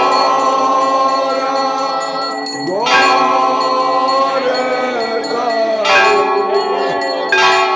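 Temple bells ringing on and on for the aarti, with a heavy new strike about every one and a half to three seconds over the steady ringing, and voices singing beneath.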